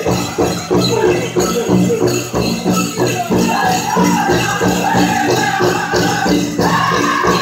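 Powwow drum group singing over a steady beat on the big drum, with the dancers' bells jingling in time. A high lead voice comes in strongly near the end.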